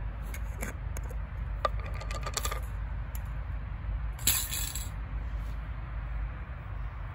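Light metallic clicks and clinks as a wire fish-grilling basket is handled, with a rattling run of them about two seconds in, then one louder, brief bright rattle about four seconds in as a small glass spice jar is handled. A steady low rumble lies underneath.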